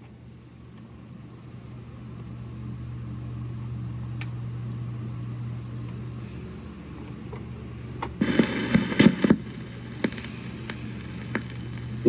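Steady low hum and hiss from a 45 RPM record playing before the song begins, with a burst of loud crackles and pops about eight to nine seconds in and a few scattered clicks.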